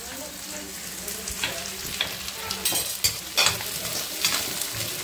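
Chopped onion frying in a pan with cumin and asafoetida, sizzling steadily, while a spoon scrapes and knocks against the pan as it is stirred several times.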